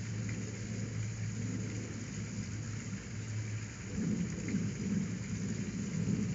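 Steady low hum under a hissing background noise, with a low rumble that grows louder about four seconds in.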